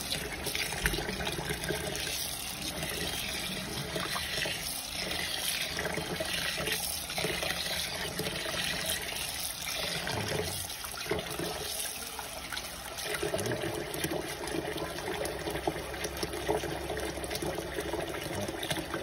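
Water running steadily from a tap, with a low even tone joining about two-thirds of the way through.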